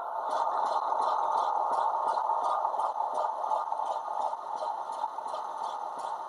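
Model diesel locomotive's Hornby HM7000 sound decoder playing a diesel engine running, a steady drone with a light rhythmic clatter about three times a second.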